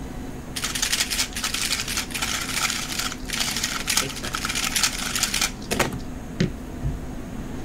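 3x3 speedcube being turned at speed: a dense run of fast plastic clicks and rattles for about five seconds that stops abruptly, followed by two light knocks.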